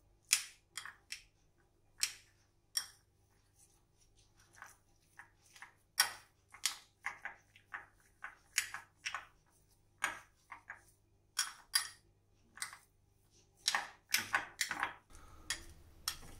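A metal spoon mixing paneer and chopped vegetables in a glass bowl: irregular clinks and taps of the spoon on the glass, coming faster near the end.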